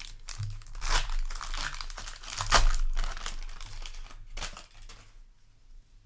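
Trading card booster pack wrapper being torn open and crinkled by hand, in irregular crackling bursts that are loudest about halfway through and die down near the end.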